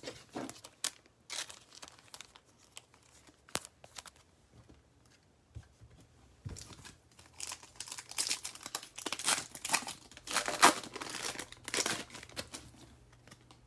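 Foil wrapper of a Panini Mosaic football card pack crinkling and tearing as it is ripped open by hand. A few scattered rustles and taps come first, then dense crinkling from about six and a half seconds in until shortly before the end.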